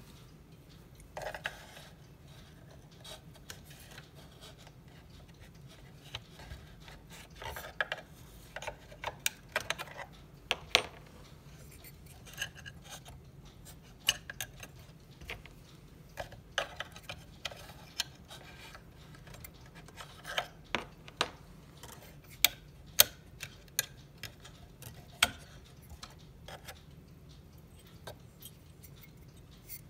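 Irregular clicks, taps and light knocks of wooden and metal cuckoo-clock parts being handled and worked loose by hand, with some rubbing between them.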